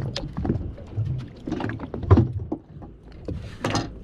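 Water slapping and lapping against the hull of a small drifting boat, with irregular knocks on board and a louder rush of water near the end.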